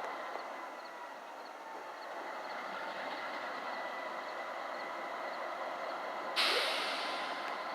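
Train rolling by with a steady mechanical rumble and faint steady tones. About six seconds in there is a sudden loud hiss that fades away.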